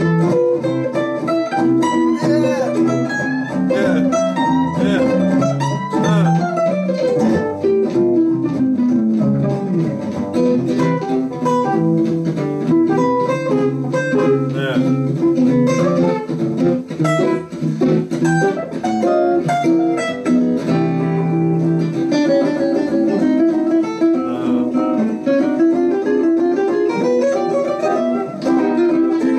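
Two archtop jazz guitars playing a duet: one comps chords while the other plays a single-note line with fast runs, a long descending run about six seconds in and a rising one near the end.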